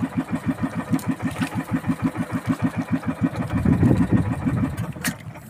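Small boat engine running with a steady chugging beat of about eight pulses a second, swelling louder about four seconds in; the beat stops near the end.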